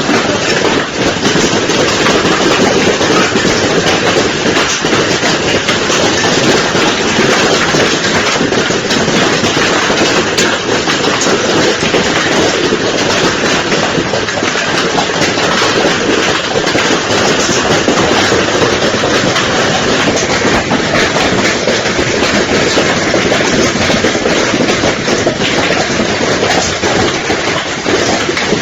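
Hail falling hard: a loud, steady clatter of countless small impacts that does not let up.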